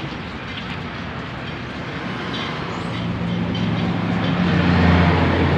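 Low engine rumble that builds over the second half and is loudest near the end, over a steady background noise.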